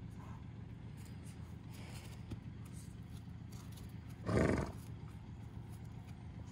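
A horse snorts once, a short noisy blow through the nostrils lasting about half a second, a little over four seconds in, while grazing with its nose to the grass.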